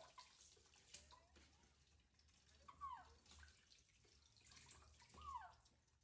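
Water running faintly into a tub, with two short falling squeaks from a baby monkey about three and five seconds in.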